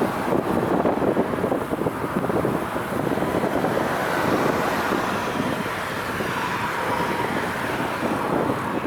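Strong wind buffeting the microphone, a loud, rough, gusting rush with no break.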